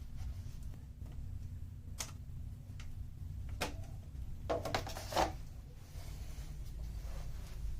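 A few sharp clicks and a short clatter of hard computer parts being handled and fitted during a desktop PC assembly, over a low steady hum.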